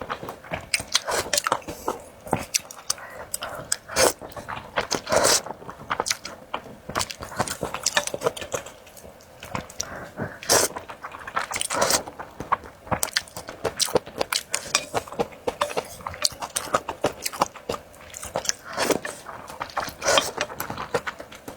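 A person eating spicy rice noodle soup close to the microphone: an irregular run of wet mouth clicks and smacks from chewing and biting.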